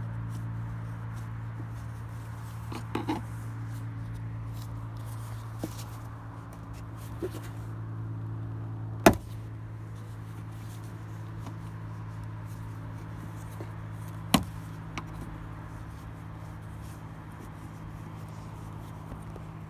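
Sharp plastic snaps and clicks as a flathead screwdriver pries a Dodge Journey's rear lamp housing loose from its plastic retaining clips. The loudest snap comes about nine seconds in and another strong one about fourteen seconds in. A steady low hum runs underneath throughout.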